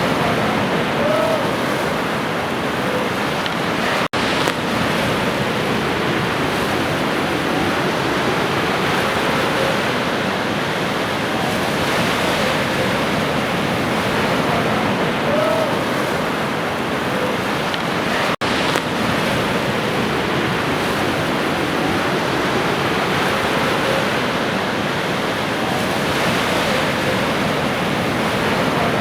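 Ocean surf washing steadily, with a faint short call now and then. The sound drops out very briefly twice, about 4 s and 18 s in, where the recording loops.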